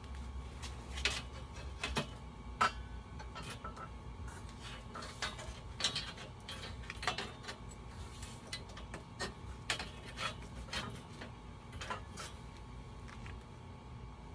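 Irregular light metallic clinks and ticks as a notched steel strip, bent into a ring, is handled and flexed by gloved hands, over a low steady hum.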